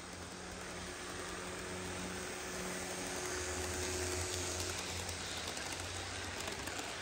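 HO scale model passenger train running past on its track: a steady rolling hiss of metal wheels on the rails with a low motor hum, growing louder over the first four seconds as the locomotives come close.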